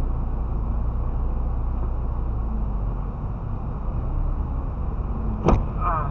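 Dashcam audio inside a car driving on a snowy highway: a steady low road and engine rumble, then about five and a half seconds in a single sharp knock as an SUV strikes it, a small tap that left only a scratch on the bumper.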